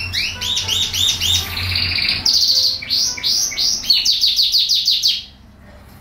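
Domestic canary singing: phrases of repeated rising notes and fast trills, the song breaking off about five seconds in.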